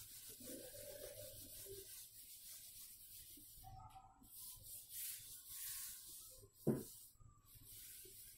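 Whiteboard duster rubbing across a whiteboard in repeated soft swishes, erasing marker writing, with one brief low thump about two thirds of the way in.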